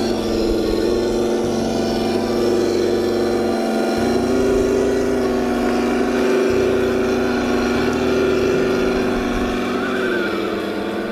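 Simulated engine sound from an RC truck's onboard engine sound system, running steadily and revving up about four seconds in as the truck drives on, then easing off near the end.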